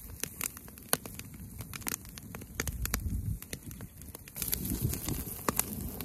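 Wood fire crackling in a steel fire ring, with irregular sharp pops over a low rumble.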